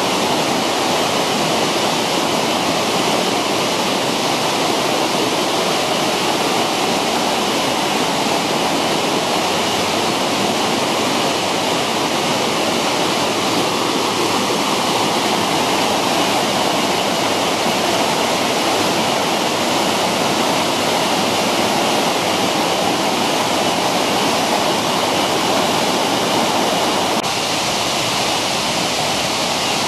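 Mountain stream rushing over rocks: a steady, loud rush of water, shifting slightly in tone near the end.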